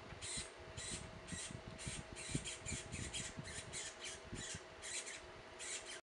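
Birds giving short, harsh chirps over and over, about three a second and sometimes faster.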